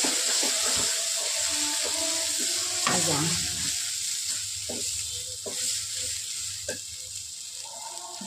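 Dal khichdi sizzling in a metal kadai as it is stirred with a wooden spatula, with a few scrapes of the spatula against the pan. The sizzle fades over the stretch.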